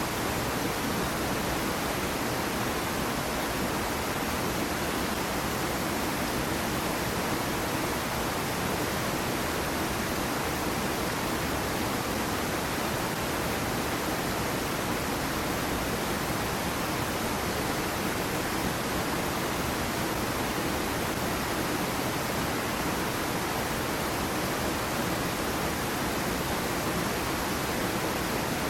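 Small waterfall on a stream splashing steadily into its pool, a constant even rush of falling water.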